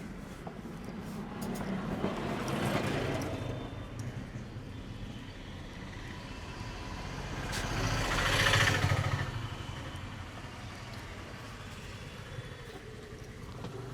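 Road vehicles passing by, two in turn: the first swells and fades around two to three seconds in, and a louder one rises to a peak near the middle and fades away.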